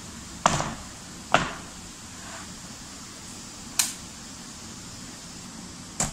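Round metal springform cake pan knocked twice on a wooden board in the first second and a half, tapping to loosen the baked sponge from the mould. A sharper, thinner click follows a little after the middle, and another knock comes at the very end.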